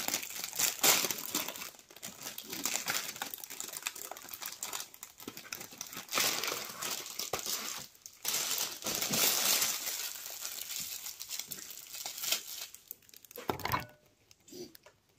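Thin plastic food packaging crinkling in bursts as it is pulled open and handled, then a soft knock near the end.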